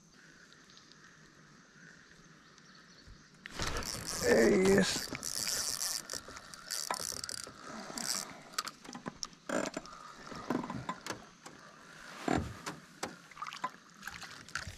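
Spinning fishing reel being cranked and rod and tackle handled while a lure is retrieved, a run of mechanical clicks and rattles that starts about three and a half seconds in after a quiet start.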